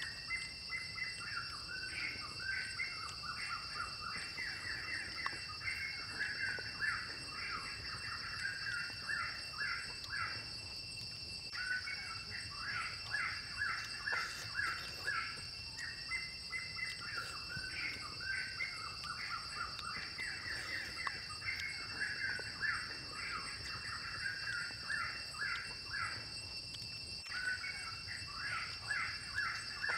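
Forest ambience: birds chattering in fast repeated calls, with a steady high-pitched insect drone underneath. The calls break off briefly twice.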